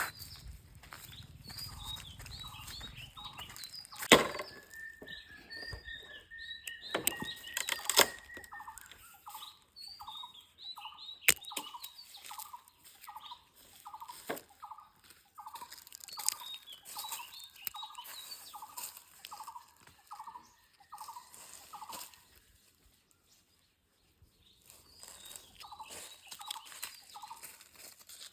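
A long series of short chirping calls repeated about one and a half times a second, with a long held whistle early on and a few sharp clicks, briefly falling silent near the end.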